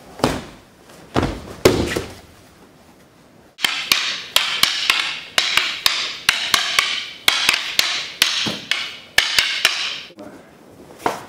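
Fight sounds for a staged hand-to-hand fight. A few separate hits open it, then from about three and a half seconds a rapid flurry of sharp smacks runs over a steady hiss and stops about ten seconds in.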